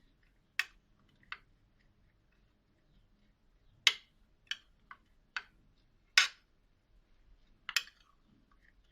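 A spoon knocking against a bowl while stirring chopped onion with salt and spices: about eight sharp clicks at irregular intervals, the loudest a little before halfway and about two-thirds in.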